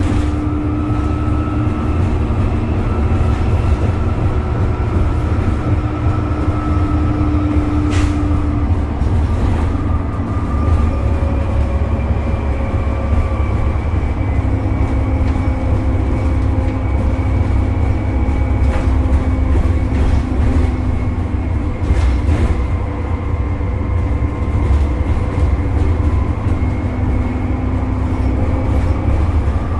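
Dennis Trident double-decker bus with a Cummins ISCe diesel and ZF gearbox under way, heard from inside the saloon: a steady heavy low drone with whining tones from the axle and driveline that drift up and down in pitch as the speed changes. Two brief sharp knocks or rattles stand out, one about a quarter of the way in and one past the middle.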